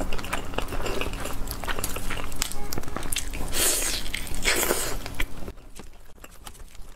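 Close-miked eating sounds of a whole roast chicken coated in chili flakes being torn apart by hand and bitten into: crackling skin and wet, sticky chewing. There are two louder crackly bursts around three and a half and four and a half seconds in, and it turns quieter near the end.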